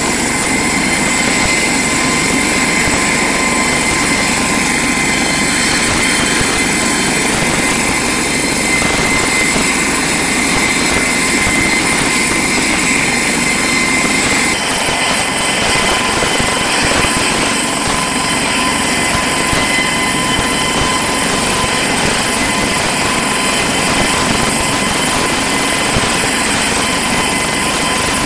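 Rescue helicopter running close by: a loud, steady rotor and engine noise with a high steady whine through it. The whine changes pitch abruptly about halfway through.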